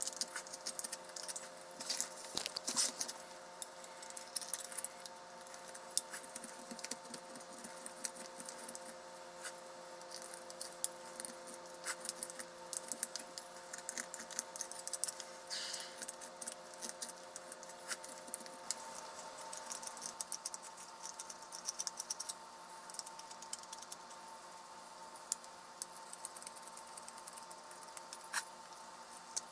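Carving knife paring shavings from a wooden spoon blank by hand: an irregular run of short scraping cuts and light clicks of the blade on the wood.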